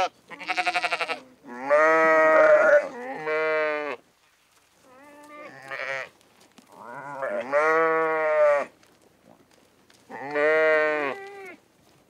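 Goats bleating: about six drawn-out calls with short gaps between them, the first one quavering.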